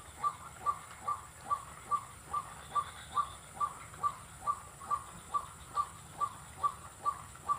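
White-breasted waterhen calling: a short, sharp note repeated evenly, about two and a half times a second.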